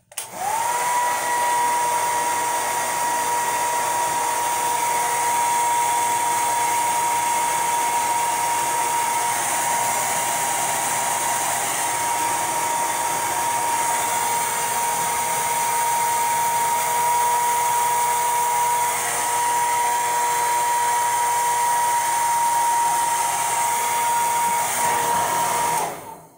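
Handheld hair dryer blowing on the glue of a lace front wig to dry it. It switches on just after the start with a quickly rising motor whine, runs steadily as a high whine over the rush of air, and switches off near the end.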